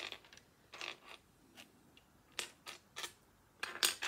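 Small plastic Lego pieces clicking and rattling as they are handled, in a string of short, sharp clicks with a louder cluster near the end.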